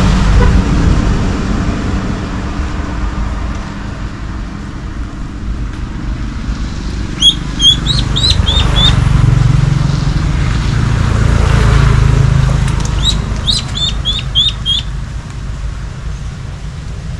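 A small bird sings two short runs of quick, high chirping notes, about seven and thirteen seconds in, over a steady low rumble that lasts throughout.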